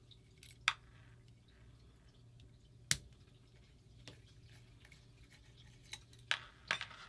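Scattered sharp clicks and taps of small metal parts and tools being handled while a paintball marker is taken apart, several seconds apart with a quick cluster near the end, over a low steady hum.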